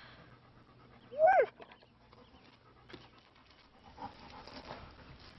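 A dog gives one short, loud whine about a second in, its pitch rising and then falling; the rest is faint.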